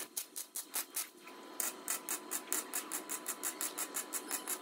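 A wire brush scrubbing a fresh weld on a steel-tube frame, in quick regular strokes, about five or six a second, that grow stronger after the first second and a half.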